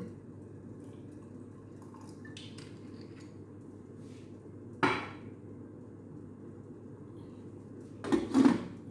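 A metal lid clanking twice onto a stainless steel cooking pot near the end. A single sharp knock about five seconds in.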